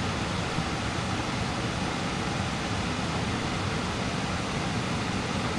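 Steady rush of a mountain stream's flowing water, an even hiss-like noise with no separate splashes.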